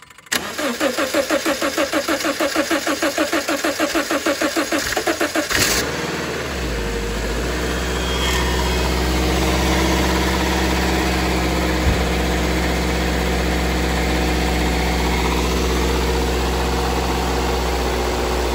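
Car engine cranking over with a fast, even rhythm for about five seconds on power from a portable jump starter, its own battery completely dead. It catches about six seconds in and settles into a steady idle.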